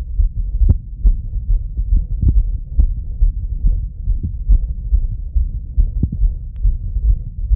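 A man's heartbeat heard through a Littmann stethoscope: quick, repeated lub-dub thuds over a low rumble from the chest piece, the heart still beating fast after running.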